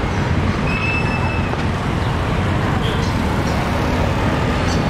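Steady traffic noise of a busy street, with a brief high-pitched tone about a second in.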